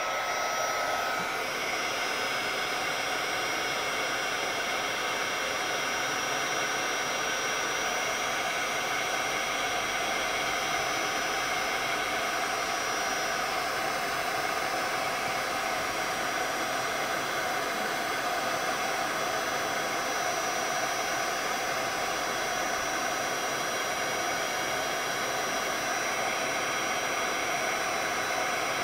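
Handheld craft heat gun running steadily, its fan blowing hot air with a steady rushing hiss and a high whine as it melts embossing powder. It comes up to full speed right at the start and holds an even pitch and level throughout.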